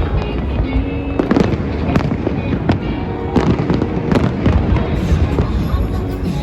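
Fireworks display going off in a rapid, irregular run of bangs and crackles, many bursts overlapping.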